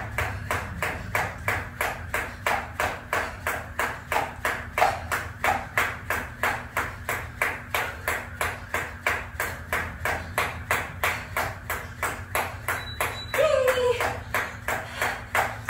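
Thin cable jump rope turning steadily, with a sharp tick as the rope meets the ground and the feet land on each turn, about two and a half a second. A short voice sound breaks in near the end.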